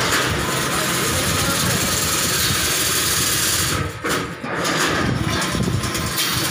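Automatic chain link fencing machine running, its electric motor and chain drive making a steady, dense mechanical noise that dips briefly about four seconds in.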